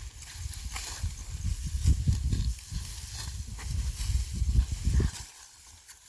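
Uneven low rumbling noise with a light hiss and scattered faint crackles, typical of wind gusting on the microphone outdoors, dying away about five seconds in.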